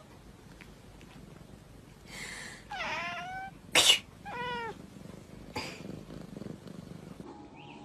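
A domestic cat meowing twice, short calls about a second and a half apart, with one sharp loud click-like sound between them.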